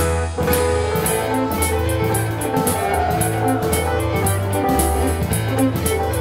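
Live contra dance band playing a dance tune: fiddle lead over digital piano chords, with drums keeping a steady beat.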